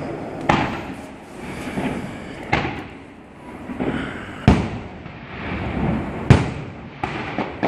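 Aerial fireworks shells bursting: sharp bangs about every two seconds, the two loudest past the middle, with a rumbling haze between them.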